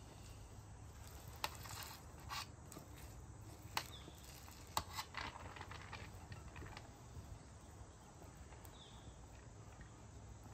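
Faint scraping and several light taps of a spatula working cooked rice out of a metal saucepan onto a metal sheet pan, the taps mostly in the first half.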